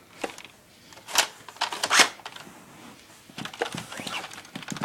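Irregular plastic clicks and knocks from a Nerf Stampede blaster, the loudest about a second and two seconds in, with a run of smaller clicks near the end.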